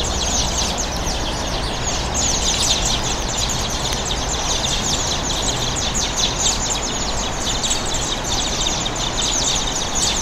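Many small birds chirping at once in a dense, continuous chorus of quick high chirps, over a steady background noise.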